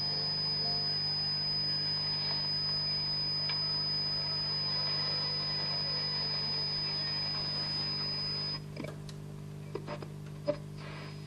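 Pionier U2 valve radio tuned between medium-wave stations, giving a steady hum with interference tones and a high whistle, the noise from energy-saving bulbs and switching power supplies. About eight and a half seconds in, the whistle and much of the hum cut out and the set turns quieter, with scattered crackles.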